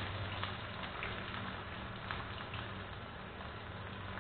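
Chopped onions frying in hot oil with mustard seeds in a non-stick wok: a steady sizzle with scattered small crackles.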